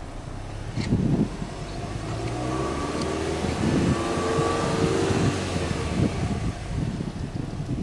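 Subaru Legacy Touring Wagon 2.0GT's EJ20 turbocharged flat-four heard at the exhaust tips, idling and then revved without load: the engine note climbs from about two and a half seconds in, holds, and falls back to idle near six seconds.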